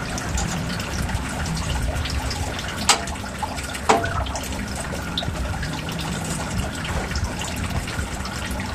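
Water running and splashing steadily into a pond. Two sharp knocks sound about three and four seconds in.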